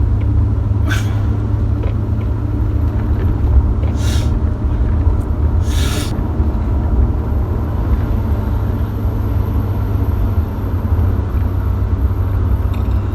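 Steady low rumble of a car driving, heard from inside the cabin, with three short hissing bursts a few seconds apart.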